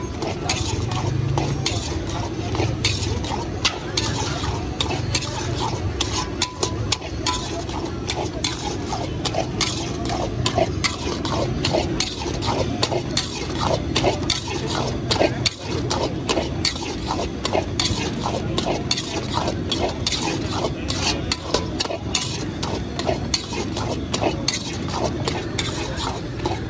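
Long-handled metal spatula stirring peanuts through thick molten jaggery in a large iron wok: continual irregular scraping and clinking of metal on the pan as the peanuts are coated for chikki.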